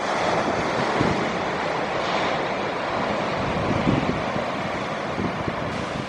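Steady rushing noise of surf breaking on the shore, with wind buffeting the microphone and the distant roar of a Boeing 777-300ER's jet engines as the airliner climbs away. The sound begins to fade near the end.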